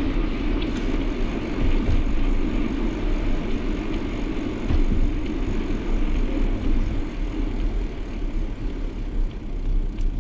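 Steady rumble of a moving car: road and engine noise.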